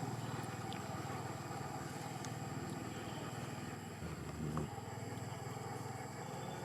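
A motor engine running steadily with an even low drone, with a brief louder sound about four and a half seconds in.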